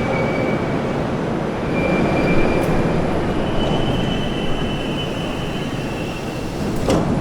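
81-760/761 «Ока» metro train running on the rails, slowing slightly, with a steady rumble and high, thin squealing tones that come and go. A sharp click near the end.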